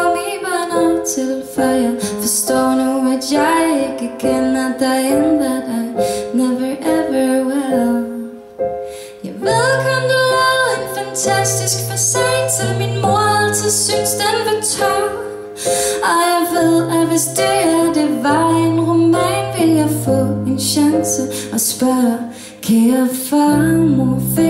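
Woman singing live while accompanying herself on a Casio digital piano; deeper held bass notes join the keyboard part about ten seconds in.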